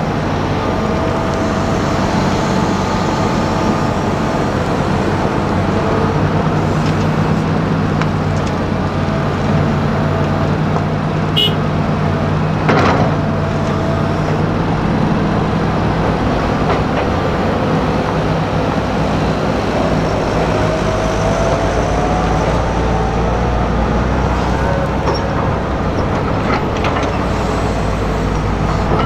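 Diesel engines of a Hitachi crawler excavator and a Fendt 820 Vario tractor running steadily as the excavator digs earth and loads it into a dump trailer, with a thin whine that wavers and rises partway through. A single thud about 13 seconds in, as a bucketload of earth drops into the trailer.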